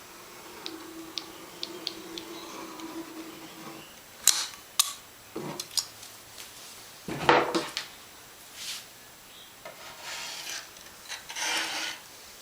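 Hand work spreading acrylic sealant for foam risers: scattered light clicks and knocks as the sealant tube and scraper are handled, with one heavier knock about seven seconds in and rubbing, scraping noises near the end.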